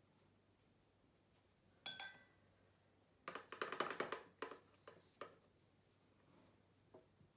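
Watercolor painting tools clinking and tapping on hard surfaces: one clink about two seconds in that rings briefly, then a quick cluster of clicks and a few single taps.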